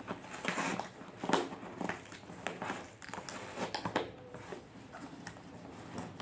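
A package being opened by hand: irregular crinkling, crackling and rustling of the packaging, with scattered sharp clicks.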